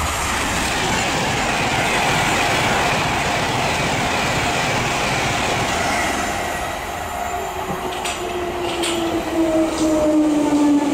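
Virgin Pendolino electric express train passing at speed: a steady rush of wheels and air, then from about seven seconds in a whine that slowly falls in pitch, with a few short high squeaks near the end.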